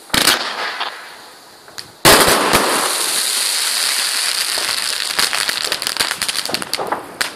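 Aerial fireworks bursting: a sharp bang just after the start, then a louder bang about two seconds in that turns into dense crackling from many crackling stars, thinning out near the end.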